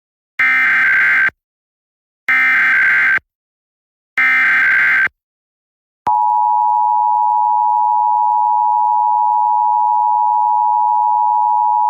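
Emergency Alert System SAME header: three one-second bursts of shrill warbling digital data tones, evenly spaced, opening a Required Monthly Test. About six seconds in, the steady EAS two-tone attention signal starts.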